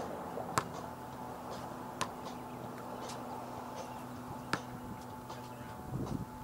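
Basketball bouncing on a gym floor: scattered sharp knocks at irregular intervals, three of them louder than the rest, over a steady hum.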